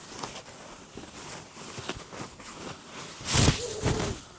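Wooden crib parts being handled and shifted, with soft knocks and rustling, then a louder scrape lasting about a second near the end as a piece is dragged or set in place.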